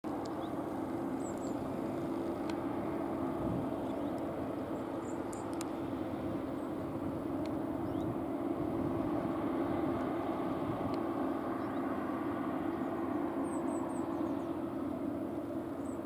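Steady drone of a CLAAS Lexion combine harvester cutting wheat, with a tractor running alongside. A few faint high bird chirps.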